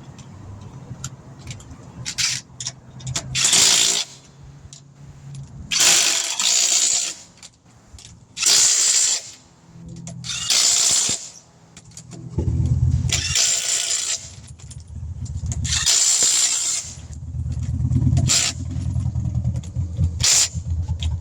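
Impact wrench running lug nuts onto a refitted wheel, in about six short bursts of roughly a second each. A steady low engine-like hum runs underneath from about halfway through.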